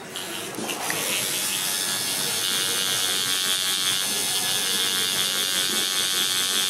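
Electric tattoo machine buzzing steadily as it works ink into the skin; the buzz starts about a second in and holds an even pitch.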